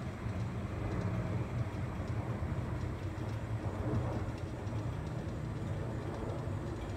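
Four-engine jet airliner passing high overhead: a steady, distant low rumble of its engines.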